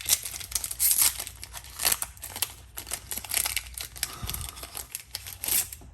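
A foil Yu-Gi-Oh! booster pack wrapper being crinkled and torn open: a close, busy run of crackles and rustles.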